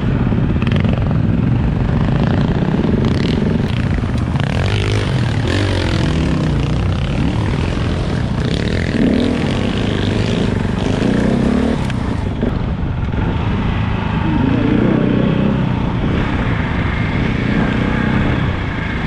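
KTM 690 enduro motorcycle's single-cylinder engine running under way on a dirt trail, the revs rising and falling.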